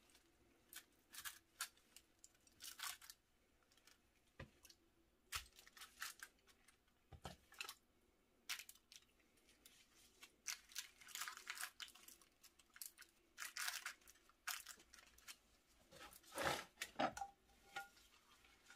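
Faint, scattered crinkling and rustling from plastic-gloved hands pressing and arranging raw steaks on a foil-lined baking tray, with a few soft taps.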